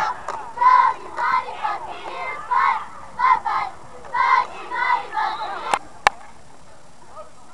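Cheerleaders chanting a rhythmic cheer in high voices, short syllables in a steady beat, stopping about five and a half seconds in. Two sharp clacks follow just after.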